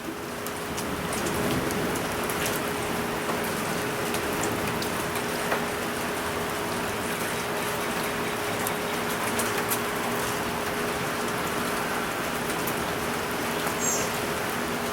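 Steady rain falling, with scattered drop ticks and a faint steady hum beneath.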